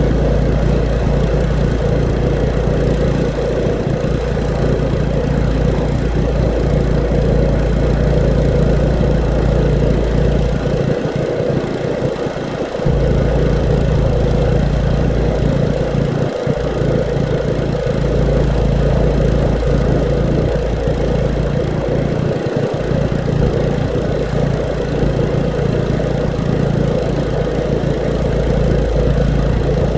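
Petrol pressure washer (water blaster) engine running steadily while the wall is being sprayed. The low rumble under it drops away briefly a few times, once for about two seconds about a third of the way in.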